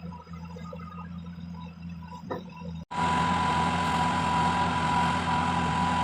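Excavator's diesel engine running with a steady hum, then much louder after a sudden break about three seconds in, with a steady high-pitched whine over it.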